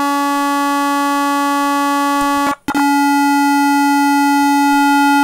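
Computer-generated sawtooth-wave tone, steady at a low-mid pitch. About two and a half seconds in it breaks off for a moment and is replaced by a square-wave tone at the same pitch, made only of the odd harmonics, which sounds even more angular and sharp.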